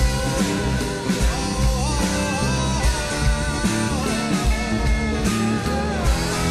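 A southern-rock band recording playing: electric guitars, bass and drums with a steady beat, and a lead line that slides up and down between notes.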